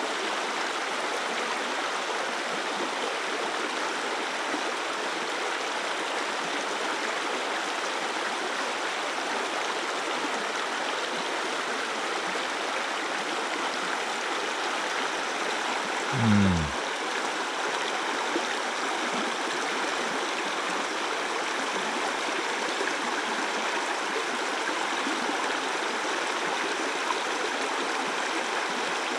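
Steady rushing of a mountain stream's flowing water. About halfway through, a brief low sound that falls in pitch.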